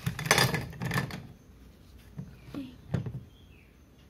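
Slate pencils tipped out of a cardboard box clatter onto a steel plate in a quick rattling burst lasting about a second. A few single clicks follow as the pencils settle or are handled.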